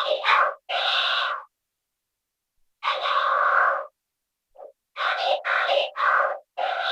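Singing voice run through the Arturia MicroFreak synthesizer's vocoder oscillator: robotic, synth-pitched syllables and held notes in several short phrases with abrupt silent gaps between them.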